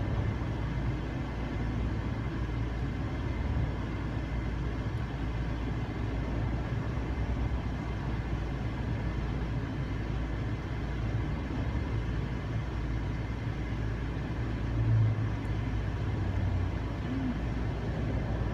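Steady low vehicle rumble, with engine and road noise as heard from inside a car cabin. The rumble swells briefly late on.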